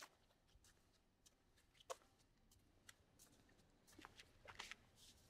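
Near silence with faint, scattered footsteps and clothing rustles, a few of them bunched together about four seconds in.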